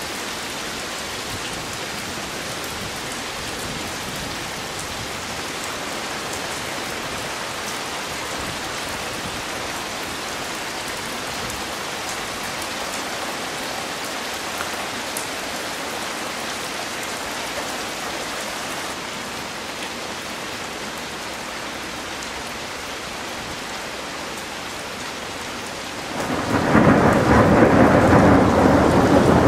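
Heavy rain falling steadily, a constant hiss. Near the end a loud roll of thunder breaks in and keeps rumbling.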